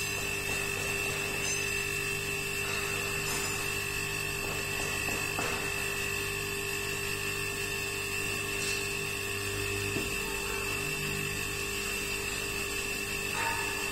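Electric hydraulic pump of a 4-ton scissor alignment lift running with a steady whine and hum while the platforms rise.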